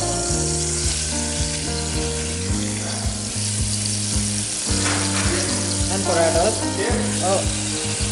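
Diced carrots frying and sizzling in a small stainless steel saucepan on a gas flame, with a spoon stirring and scraping the pan in scattered clicks. Background music with held notes plays throughout.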